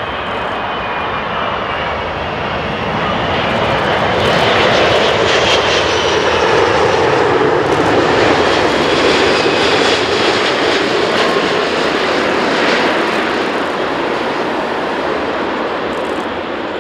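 Airbus A380-861's four Engine Alliance GP7200 turbofans on final approach: a jet roar with a high whine that swells as the airliner passes close, is loudest about five to ten seconds in, then slowly eases. The whine falls in pitch as it goes by.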